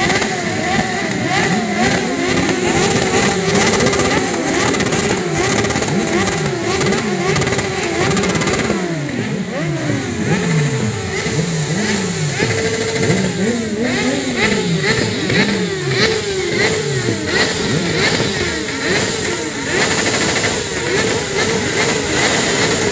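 Several sport motorcycle engines revving hard over and over, their pitch climbing and dropping in overlapping swells, with one engine held at steady high revs through the middle.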